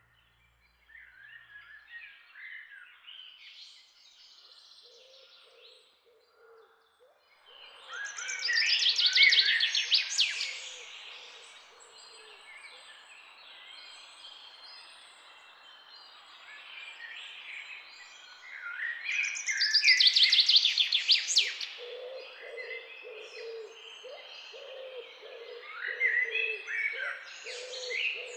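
Several birds calling and singing together, with two loud bouts of fast trilling song, about 8 and 20 seconds in, over a run of low repeated notes.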